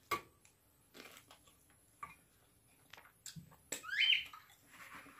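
Mouth sounds of eating a sauce-glazed chicken drumstick: soft smacks and clicks of chewing, roughly once a second. About four seconds in there is a louder sucking sound that rises in pitch as sauce is licked off the fingers.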